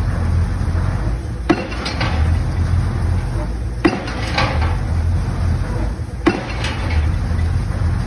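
Pile hammer striking the top of a precast concrete pile three times, about every two and a half seconds, each blow a sharp strike followed by a short metallic rattle. A steady low engine hum runs underneath.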